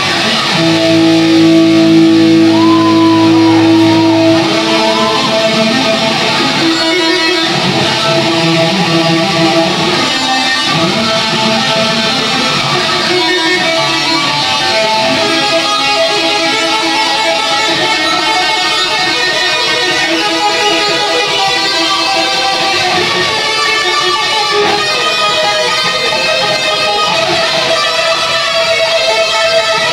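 Electric guitar solo played live and loud through an amplifier. It opens with a long held note for the first few seconds, then moves into busy lead lines.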